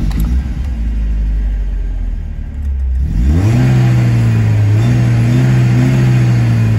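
1979 BMW 320i (E21) engine on its first start: the starter cranks for about three seconds, then the engine catches, revs up and runs fast and steady.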